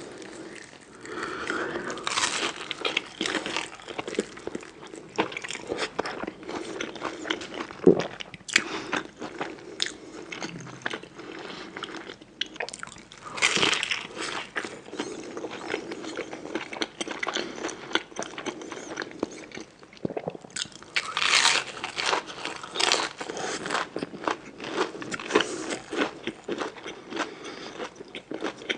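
Close-miked eating: bites and chewing with crisp crunching. The louder crunchy bites come a couple of seconds in, about halfway through, and about three-quarters of the way through.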